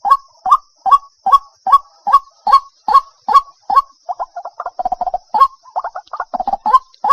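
White-breasted waterhen calling: loud short notes repeated about two and a half times a second, breaking into a faster, jumbled run of notes from about four seconds in before the steady beat returns. A faint steady high hiss sits behind the calls.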